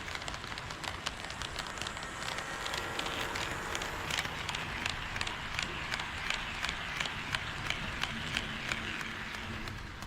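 HO scale KATO D51 steam locomotive model running on sectional track, its wheels clicking at the rail joints about three times a second over a steady running hiss. The sound swells as it comes close and eases off near the end.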